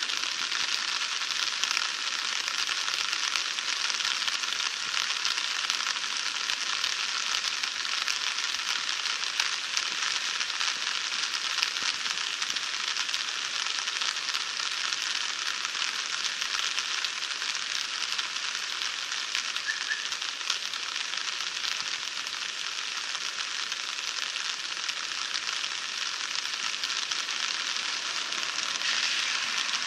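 Swollen creek in flood, brown water rushing fast past the banks and under a bridge, giving a steady, dense hiss.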